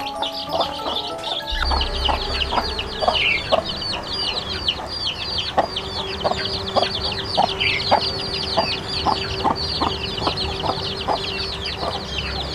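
Many chicks peeping without pause in high, falling cheeps, with a hen clucking in a steady run of short clucks.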